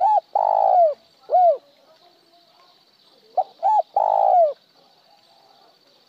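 A spotted dove calls two cooing phrases, each of short notes and one longer falling coo. The first phrase ends with one short extra note after the long coo, the 'một hậu' (one tail note) call that keepers prize. The second stops plainly on the long coo without a tail note.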